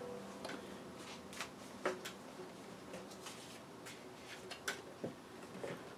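Faint rustling and scattered soft clicks of a small book being handled and its pages opened.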